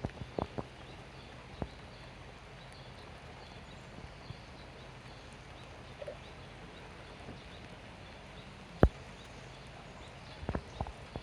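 Dogs moving about: scattered light clicks and knocks of paws and claws over a faint steady background with a low hum, and one sharp knock about nine seconds in.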